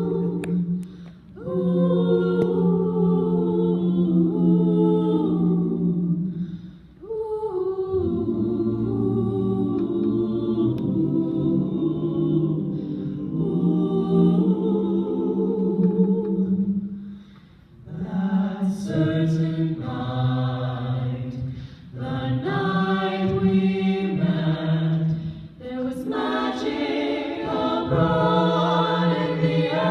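High school choir singing an a cappella jazz close-harmony arrangement in sustained, full chords, its phrases separated by short breaks.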